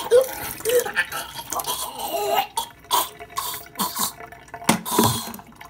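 Water glugging out of an upturned plastic water bottle and splashing into a stainless steel sink, followed by scattered sharp clicks and crackles.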